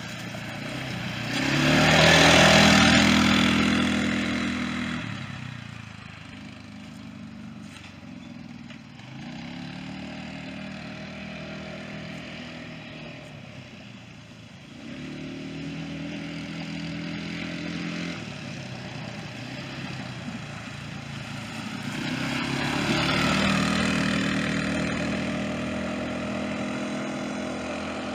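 A four-wheeler (ATV) engine running under changing throttle, its pitch rising and falling. It is loudest as it passes close about two seconds in, drops back as it rides off through the woods, and grows loud again near the end.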